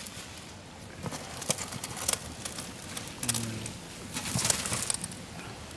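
Blocks of dried noodles being dropped and pushed into a large pot of boiling water, with scattered splashes and clicks. A dove coos once, briefly, about three seconds in.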